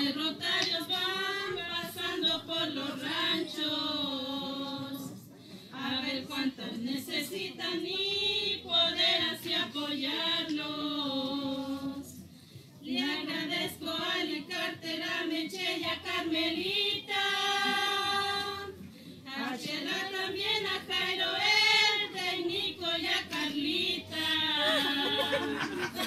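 A small group of women singing a song together in Spanish, phrase by phrase with short breaks, holding one long note about two-thirds of the way through.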